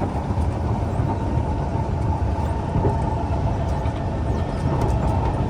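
Kawasaki C151 metro train running between stations, a steady low rumble of wheels and motors heard from inside the carriage.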